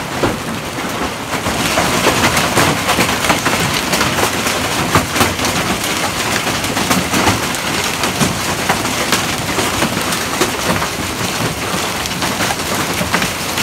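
Hailstorm: hailstones pelting down, a dense hiss full of sharp ticks from individual stones, growing louder about two seconds in.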